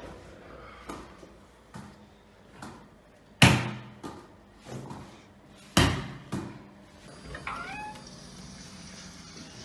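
Irregular knocks and thuds, about one a second, with two sharp loud ones about two seconds apart in the middle, then a short rising squeak near the end.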